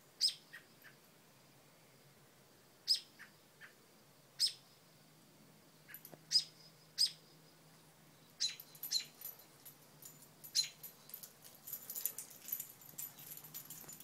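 American robin giving sharp, high alarm calls, each one short and dropping in pitch, a mother bird scolding a dog near her nest. The calls come singly every second or two at first, then faster and closer together from about halfway through.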